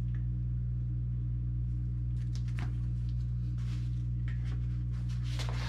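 Comic books and packaging being handled in a cardboard box: a few short soft rustles, with a louder rustle near the end. A steady low electrical-sounding hum runs underneath.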